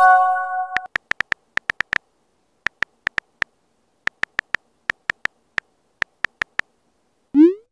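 On-screen phone keyboard key-press clicks, in quick runs of taps with short pauses as a message is typed. It opens with a short chime of several held tones fading out within the first second, and near the end a quick rising whoosh as the message is sent.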